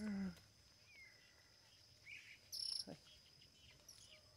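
Insects chirring steadily and faintly, with a brief louder burst of high chirring near the middle. A bird gives a short falling whistle about a second in, and a short low voice-like call sounds right at the start.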